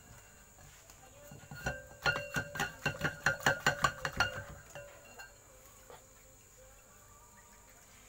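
A quick run of about a dozen sharp metallic taps, some five a second, each ringing on, as a refrigerator compressor's motor stator is handled inside the steel compressor shell; the ringing fades out a second or so after the last tap.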